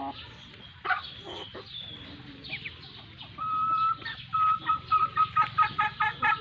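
Chickens clucking as they feed. Scattered calls at first, then from about halfway a fast run of sharp repeated clucks, several a second, growing louder toward the end.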